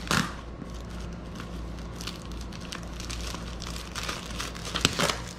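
Paper and a plastic document pouch on a cardboard parcel crinkling and rustling as they are pulled at by hand, with louder crackles at the start and again near the end.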